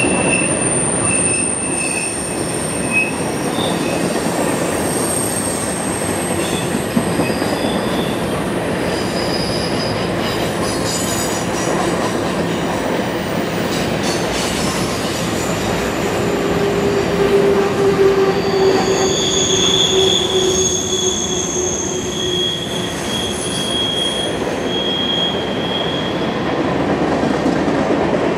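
Freight train cars rolling steadily past with a continuous rumble, their steel wheels squealing against the rails in high, wavering whines that come and go, typical of wheel flanges grinding through a curve.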